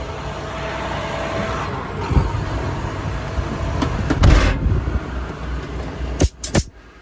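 International MaxxForce 7.6 diesel of a service truck idling steadily, with a few bumps over it. Two sharp knocks come near the end, after which the sound falls much quieter.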